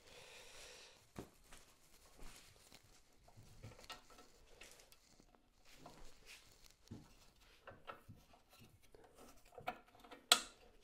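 Faint handling sounds on a jointer-thicknesser: a soft brushing of wood shavings off the table at the start, then scattered light clicks and knocks of metal parts being handled, with a sharper click near the end.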